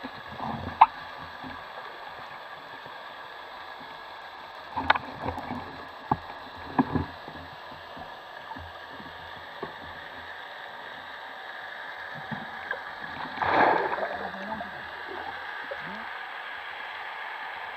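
Underwater ambience picked up by a diver's camera: a steady hiss, scattered sharp clicks and knocks around the first second and between about five and seven seconds in, and a louder, brief gurgling rush about thirteen and a half seconds in.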